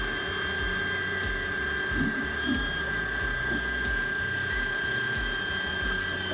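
Xenon HPW410 electric high-pressure washer running with a steady high whine, its jet hissing as it sprays a scooter's wheel and bodywork in a rinse.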